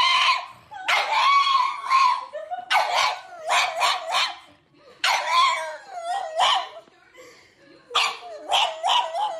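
A pug vocalising in four or five bursts of high, wavering calls, some drawn out and some short and yelping, with brief pauses between them.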